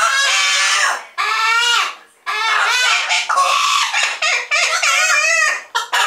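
Double yellow-headed Amazon parrots calling loudly: a run of pitched calls that slide up and down, with short breaks about one and two seconds in.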